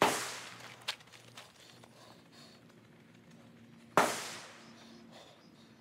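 Two gunshots about four seconds apart, each a sharp crack trailing off in an echo, with a smaller click just under a second in.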